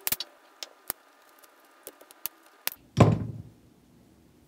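Sharp plastic clicks and cracks as the case of a burnt relay is pried open with a small tool, then one heavy dull thump about three seconds in.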